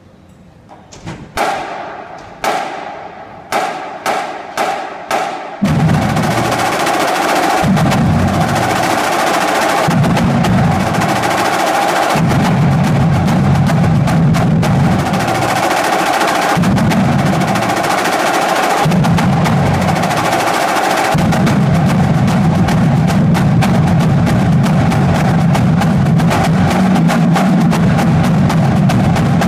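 Marching snare drumline in unison: a string of separate sharp hits with pauses over the first few seconds, then continuous fast drumming with rolls, its low end swelling and dropping away in sections.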